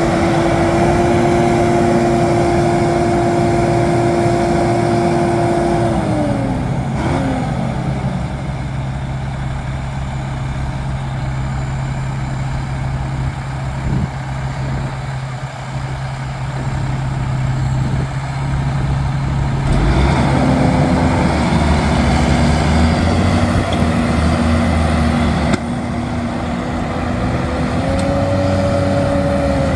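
Big diesel tractor engines running hard under heavy load. About six seconds in the engine note drops steeply as the engine bogs down under the load, holds a lower steady tone, then climbs back up about twenty seconds in.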